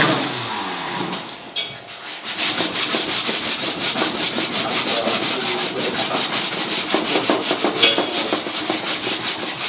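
Wooden bow being sanded by hand: fast, even back-and-forth rubbing strokes, about five a second, starting about two seconds in.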